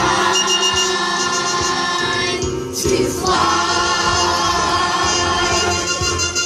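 Stage musical number: a group of voices singing long held notes together over musical accompaniment.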